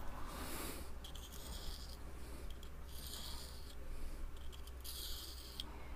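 Small spatula spreading thermal paste across a hair straightener's metal heater plate: a few soft scraping strokes, each under a second.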